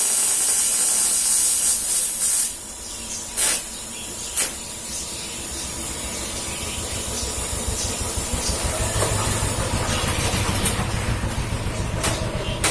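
TIG welding arc on aluminium hissing, cutting off abruptly about two seconds in. A few sharp clicks follow, then a low, rapidly pulsing motor-like rumble that slowly grows louder.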